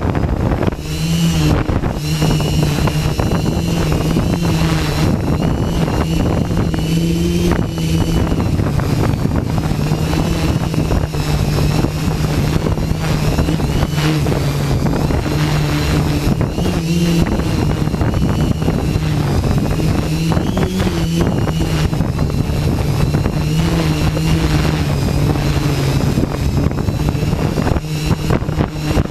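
Hexacopter's six motors and propellers humming in flight, the pitch shifting slightly up and down, with high wind buffeting the microphone.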